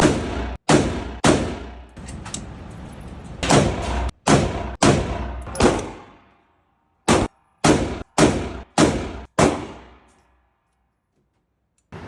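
Rifle shots, about a dozen. Each is a sharp crack with a short ringing decay: a spaced group in the first six seconds, then a quicker run of five about half a second apart. Some are cut off abruptly.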